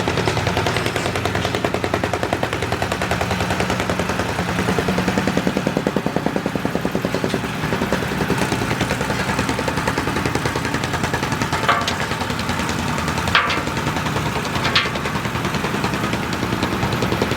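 Construction machinery hammering rapidly and without a break, a fast, even stream of pulses. Three sharper knocks stand out in the second half.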